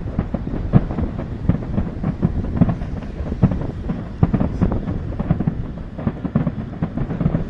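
Aerial fireworks bursting in quick, irregular succession, several bangs a second over a continuous low rumble.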